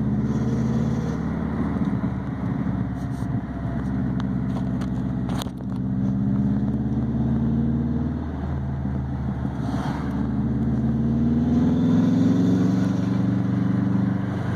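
A 2004 Subaru Impreza WRX STI's turbocharged flat-four engine running while driving, its pitch drifting up and down with revs and climbing near the end. There is a sharp click about five and a half seconds in, with a brief dip in level.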